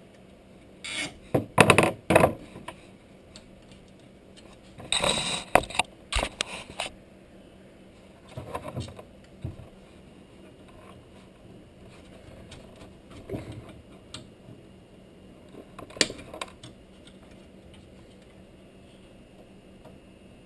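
Nylon cable ties being pulled through and tightened to fasten a case fan to a computer case: short bouts of zipping clicks, rattles and scrapes, in about five spells with quiet between them.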